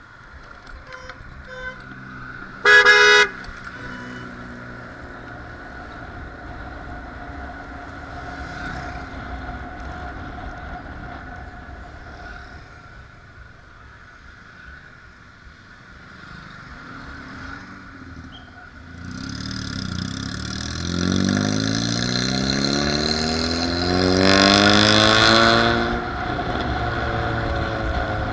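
Vehicle horn honking once, short and loud, over running engine and road noise. Later a vehicle engine rises in pitch and grows louder, peaking near the end before its pitch drops away.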